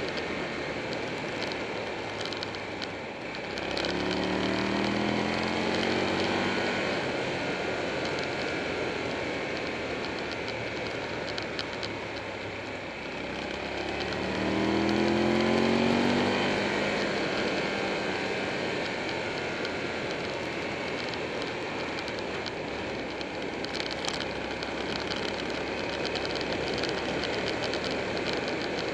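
Buell 1125R motorcycle riding at speed: a steady rush of wind over the microphone and road noise, with the 1125cc V-twin engine coming up twice, a few seconds in and about halfway through, its pitch rising as the bike accelerates.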